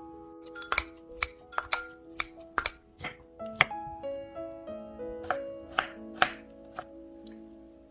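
Background music with a knife chopping on a cutting board: sharp, irregular knocks, loudest and most frequent in the first four seconds, then more spaced out.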